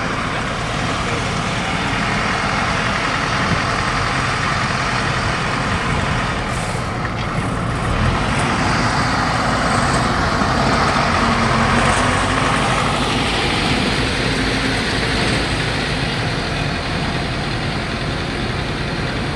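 Rice combine harvester running steadily, a continuous machine noise with a low engine hum underneath.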